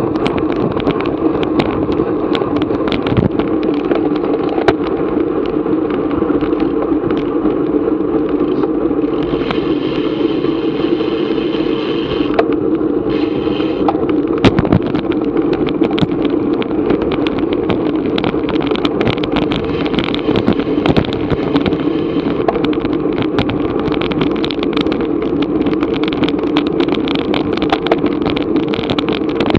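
Steady rush of wind buffeting an action camera's microphone on a racing bicycle at speed, with small rattles and clicks from the bike over the road; a higher hiss joins from about nine seconds in for a few seconds.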